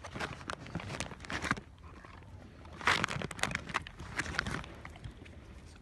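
A dog chewing and crunching a dried beef lung treat: quick irregular crackling clicks in two spells, the louder one about three seconds in.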